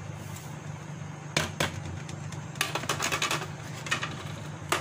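Flour tipped from a ceramic plate into a stainless steel bowl, with light clicks and taps of the plate's edge on the bowl, one quick run of them midway, over a steady low hum.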